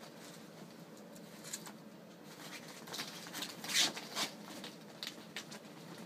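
Ferrets scrambling through a fabric play box of plastic balls and a clear ribbed plastic tunnel: scattered clicks, rustles and light clatter of balls. The loudest rustle comes a little before four seconds in.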